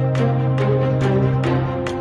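Background music with a steady beat, a hit about twice a second over held tones.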